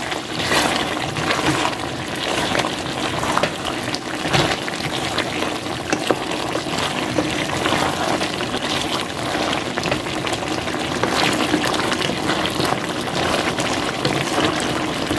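Chicken and bottle gourd curry cooking in a pot, with a steady hiss and bubble, while a wooden spatula stirs it, scraping and knocking against the pot.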